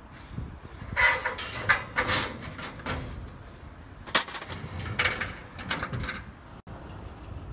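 Metal rails of a rooftop solar water heater's mounting frame being dismantled: scraping and clanking in a few irregular bursts, with the sharpest clank about four seconds in.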